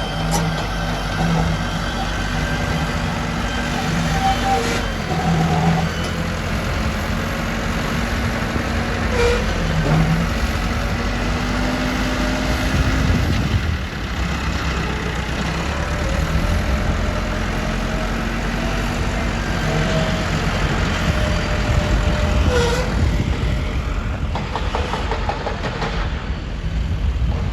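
Heavy diesel earth-moving machinery running, its engine note holding steady and now and then shifting in pitch, with a few short knocks.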